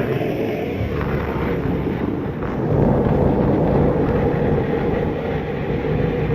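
Dense, distorted low rumbling drone from a horror sound-design effect, growing louder a little under three seconds in.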